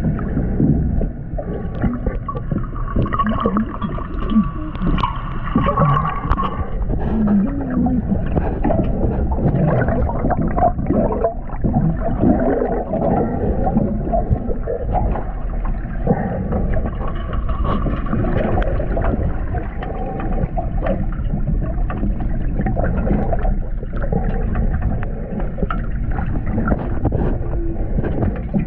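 Muffled underwater sound through a GoPro's waterproof housing: steady water sloshing and gurgling, with many irregular small clicks and knocks. A faint higher hum comes in twice, once early and once past the middle.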